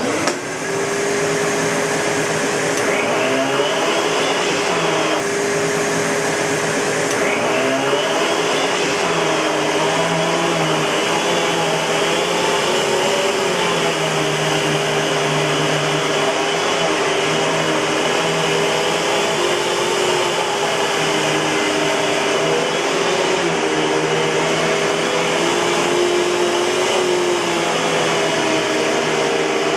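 Eureka Boss 6833B canister vacuum cleaner switched on at the start and then running steadily, a constant motor whine with lower tones that waver and shift in pitch as it works.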